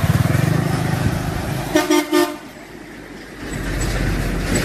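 Heavy trucks driving past with a low engine rumble, then two short horn toots about two seconds in; traffic noise builds again near the end.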